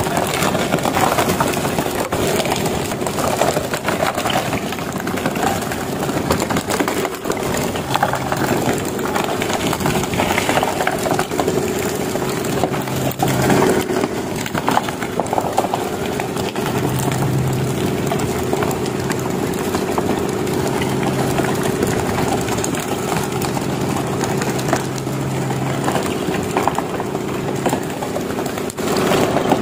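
Engine running steadily aboard a bagang lift-net fishing boat: a constant hum under a dense wash of noise, with a lower drone that comes and goes and an occasional knock.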